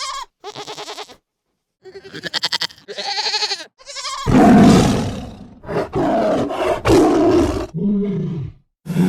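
A bleating animal gives two quavering calls. Then, about four seconds in, a large animal roars loudly several times, ending with a shorter, lower growl.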